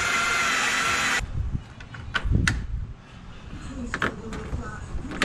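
Electric drill running with a steady whine, cut off abruptly about a second in while drilling a mounting hole for a bumper quick-release latch. A few sharp clicks and knocks follow as the work is handled.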